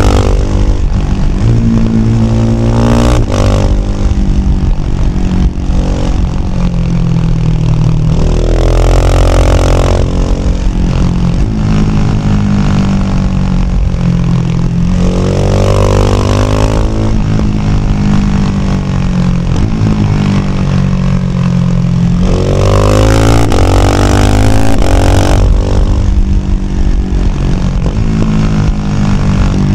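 Husqvarna Vitpilen 701's single-cylinder engine, heard through a Shark SRC 4 slip-on exhaust while riding. It pulls hard through the gears about three times, its pitch climbing and then stepping down at each shift, with steadier running and rolling off the throttle in between.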